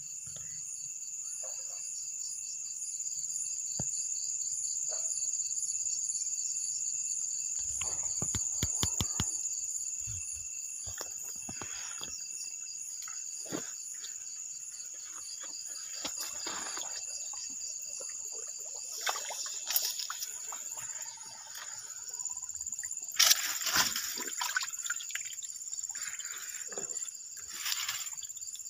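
Night insect chorus: a steady, high-pitched, pulsing trill that runs without a break. Scattered rustles and knocks close by, the loudest near the end.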